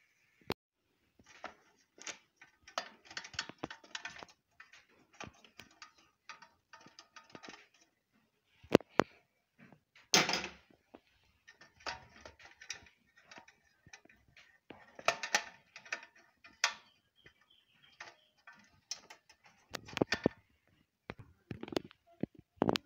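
Irregular clicks, scrapes and rattles from a plastic consumer-unit enclosure and its fittings being handled and fitted, with a few sharp, louder clicks standing out.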